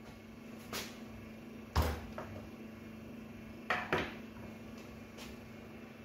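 Plastic knocks and clicks from handling a microwave's removed front control panel and setting it and a screwdriver down on a workbench: a handful of short knocks, the loudest about two seconds in with a dull thump, over a faint steady hum.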